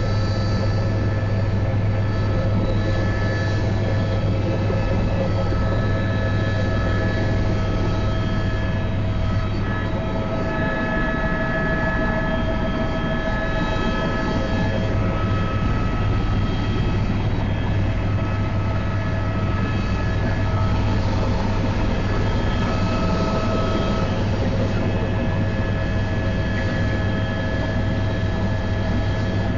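Helicopter in flight heard from inside the cabin: a loud, steady low drone from the rotor and engine, with several steady high-pitched tones over it.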